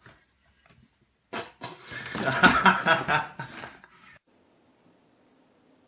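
A person laughing, a pulsing burst of laughter lasting about three seconds.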